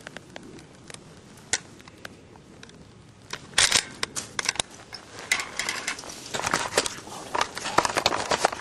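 Close crunching and rustling noises with sharp clicks, sparse at first and coming in dense bursts through the second half.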